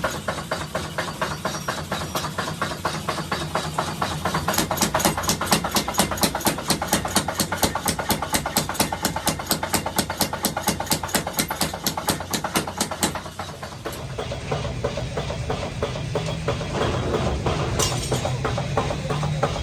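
Rapid, evenly spaced hammer blows on hot iron, about five a second, forging tongs. The blows stop about thirteen seconds in, leaving a steady low machine hum with one sharp click near the end.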